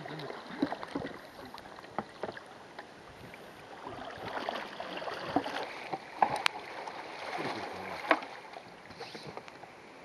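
Single-blade paddle strokes splashing and the river rushing past a solo whitewater open canoe, a Dagger Ocoee, as it runs a small drop. Sharp splashes come through the steady water sound, the loudest about six seconds in and again around eight.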